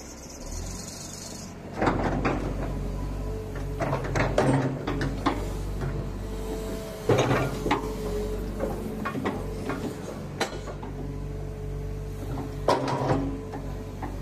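Kobelco SK125SR hydraulic excavator's diesel engine running with a low steady drone while the boom and arm are raised and lowered. Clunks and knocks from the hydraulics and linkage come through over it, the loudest about two, seven and thirteen seconds in.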